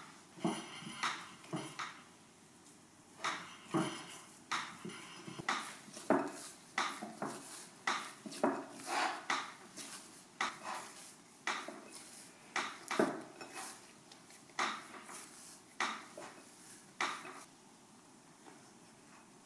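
Bread dough being kneaded by hand in a ceramic bowl: irregular soft knocks, slaps and scuffs of dough and hands against the bowl. They stop a couple of seconds before the end.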